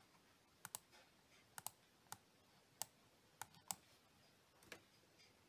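Faint, scattered clicks at a computer, about ten in all, several coming in quick pairs.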